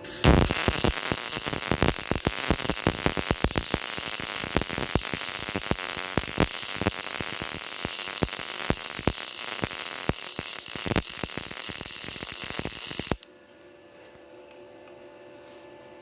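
PrimeWeld MIG 180 welder's arc crackling steadily on 20-gauge mild steel during a fillet weld pass. It runs for about thirteen seconds, then stops abruptly when the trigger is released.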